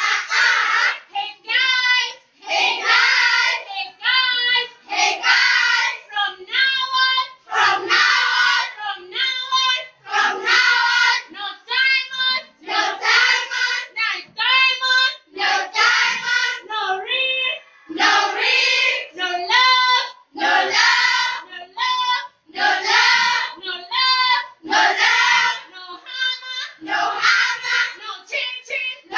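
A group of schoolchildren singing together, loud, in short repeated phrases with brief breaks between them.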